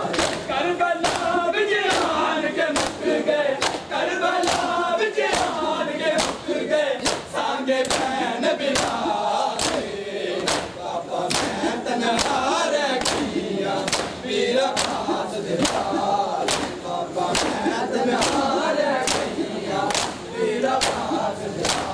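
Mourners' matam: many hands striking bare and clothed chests together in a steady beat of about two strikes a second, over a crowd of men chanting in chorus.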